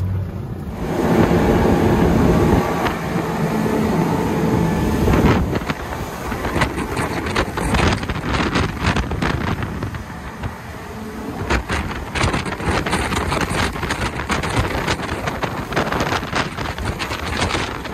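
Four outboard motors running as a fishing boat travels at speed, with wind buffeting the microphone, heaviest from about five seconds in.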